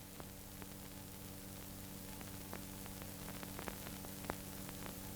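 Low hiss and steady hum from an old film soundtrack, with a few faint scattered ticks of crackle.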